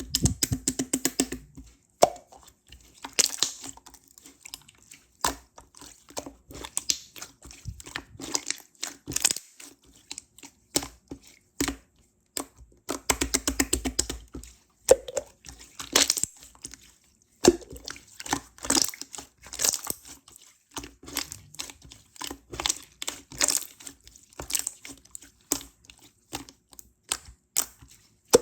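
Clear slime being squeezed and worked by hand, giving a dense run of sticky clicks and pops. The slime still holds air bubbles, which pop as it is pressed.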